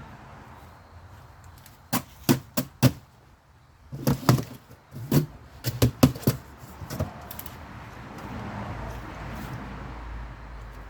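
A run of sharp clicks and knocks: four about two seconds in, then a denser cluster of about eight between four and seven seconds in, like objects being handled and set down.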